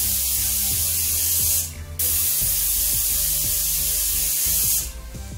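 Aluminium pressure cooker whistling: its weight valve lets out a loud jet of steam as a steady hiss. The hiss breaks off briefly about two seconds in, resumes, and stops near the end. It is the sign that the cooker has come up to full pressure.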